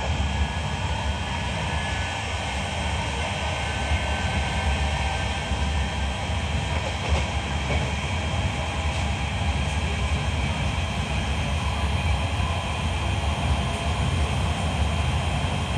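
Interior running noise of a Class 323 electric multiple unit travelling at speed: a steady low rumble of the wheels on the rails with a thin, steady high whine over it.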